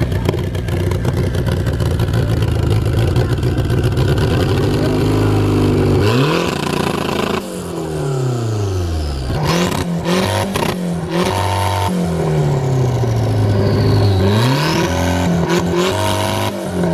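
Car engine running steadily at first, then revved several times, its pitch climbing and falling back from about five seconds in.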